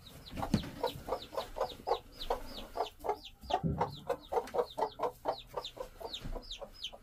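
Newly hatched chicks peeping in a steady run of short, high, falling chirps, several a second, with a hen's short, lower clucks among them.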